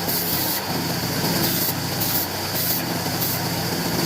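Electric wood-cutting machine running steadily, with a low hum under a hiss that swells regularly, somewhat under twice a second.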